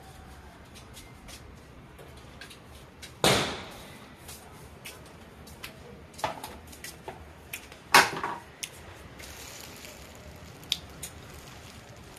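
Long-handled plastic dustpan being handled on a concrete floor while coconut husk fibre is swept up: two loud knocks with short scraping tails, about five seconds apart, and lighter clicks and taps in between.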